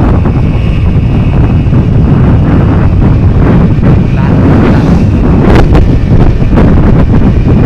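Heavy wind buffeting on the microphone of a camera mounted on a moving Yamaha DT100 two-stroke trail bike, with the engine running underneath; a few sharp knocks come a little past halfway.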